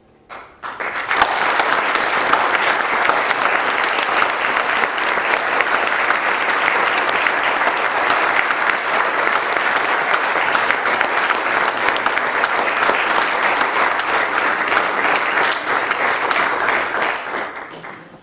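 Audience applauding: a few claps about half a second in, swelling within a second into dense, steady clapping that fades away near the end.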